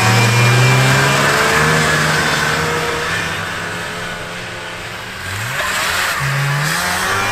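Two vintage snowmobiles' two-stroke engines running at full throttle in a drag race, one of them a Yamaha Enticer said to be weak on one cylinder. The engine sound fades as the sleds pull away, then grows louder again with rising revs about five seconds in.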